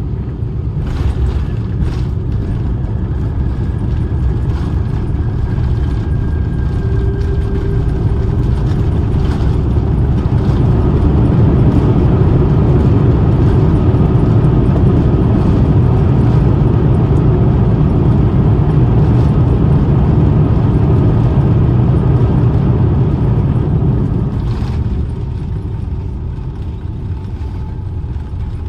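Airbus A350-900 landing, heard from inside the cabin: a couple of thumps about a second in as the wheels touch down, then a deep rumble with a faint engine whine. The rumble builds into a loud, steady roar of reverse thrust on the Rolls-Royce Trent XWB engines during rollout and eases off about 25 seconds in.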